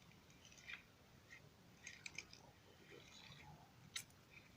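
Near silence, with a few faint short clicks.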